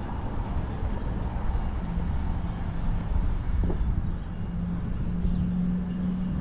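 Diesel locomotive of an approaching freight train rumbling, with a steady low engine drone that grows stronger from about two seconds in.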